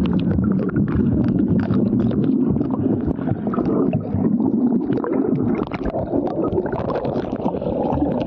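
Underwater sound picked up with the microphone submerged in a river: a muffled low rumble of stirred water, with many small bubbles popping and gurgling.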